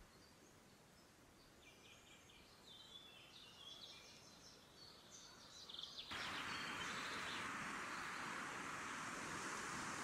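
Songbirds chirping and trilling in short, high phrases. About six seconds in, a steady rushing noise cuts in suddenly and mostly covers them.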